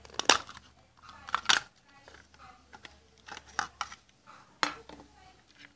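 Several sharp, irregular plastic clicks and snaps as a digital multimeter's hard plastic case is pried apart and its 9-volt battery handled.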